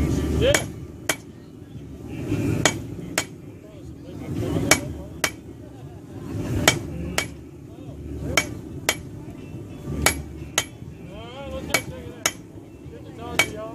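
Blacksmith's hammer striking hot steel on an anvil while forging a leaf. The blows come in pairs about half a second apart, a new pair every second and a half to two seconds, and each rings briefly.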